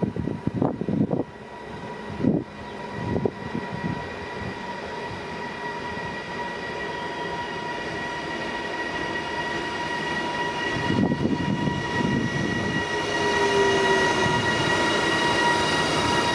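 A train approaching along the track, growing steadily louder, with a steady high whine running under the rail noise. A few short knocks come in the first few seconds.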